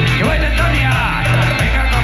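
Loud dance music with singing, played over a sonidero's sound system, with a steady pulsing bass beat.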